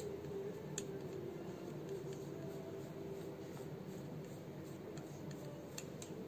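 Paintbrush dragged lightly over a raised, moulded cast frame, dry-brushing with very little paint: soft scratchy strokes with a few faint ticks, over a steady low background hum.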